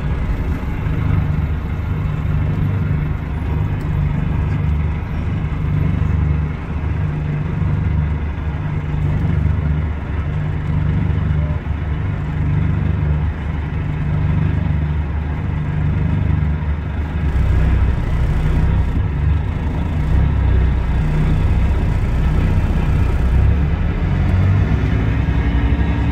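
Scania DC9 five-cylinder diesel engine of a Scania K320IB coach running with a steady low drone; its tone shifts a little about two-thirds of the way through.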